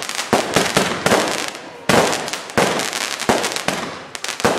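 Aerial fireworks display: a rapid, irregular string of bangs from bursting shells, several a second, with crackling between them.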